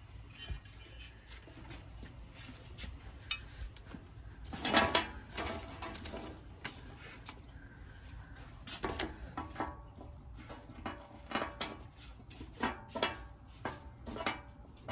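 Irregular metallic clinks and clatter of steel side-step mounting brackets being handled, with a louder cluster of clatter about five seconds in and a run of sharp separate clinks near the end.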